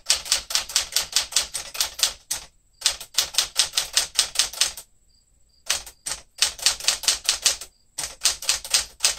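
Typing on a 1967 Sears Tower Citation typewriter, built by Smith Corona: quick runs of sharp key strikes, about six a second, in four bursts with short pauses between.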